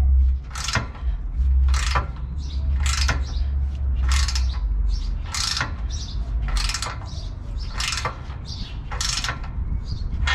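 Ratchet wrench clicking in short runs about once a second as it is swung back and forth, tightening the clamp bolt on an exhaust pipe joint, over a low rumble.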